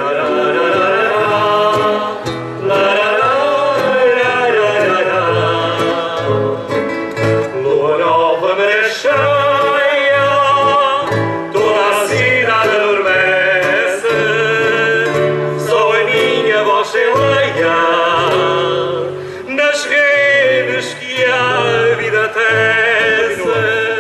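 Singers performing a song to acoustic guitar accompaniment, the guitars strumming chords over a stepping bass line.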